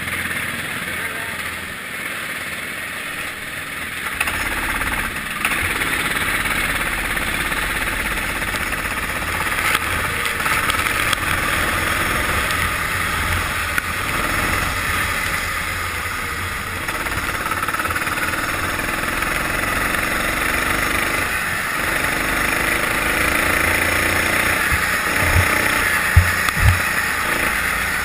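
Sodi rental go-kart's engine running and pulling away, then lapping at speed on a wet track, over a steady hiss of tyres and spray on the wet surface. Two short knocks come near the end.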